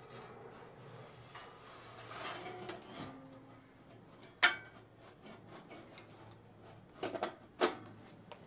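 Red metal cabinet of a vintage Christie battery charger being slid back down over the charger's chassis: scraping and rubbing, then a sharp metal clank about four and a half seconds in, and a few more knocks near the end as the case is seated.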